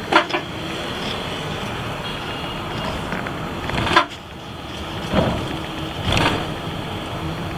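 Steady engine and road noise heard from inside a moving double-decker bus. Short louder bursts of noise come just at the start, about four seconds in, and twice more near five and six seconds.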